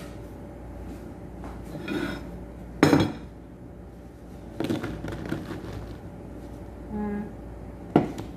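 A wooden bowl and a plastic colander being handled and set down on a wooden table. A few knocks and some clatter, the loudest knock about three seconds in and another sharp one near the end.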